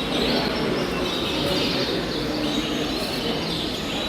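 Many caged canaries chirping and calling over a steady background hubbub.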